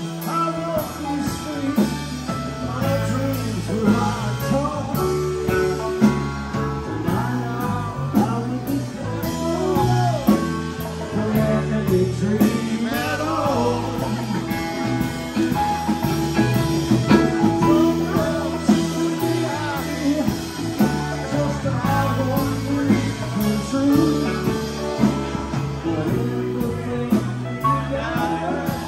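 Live rock band playing a slow song: electric guitar, electric bass, keyboards, drum kit and congas, with a voice singing over them.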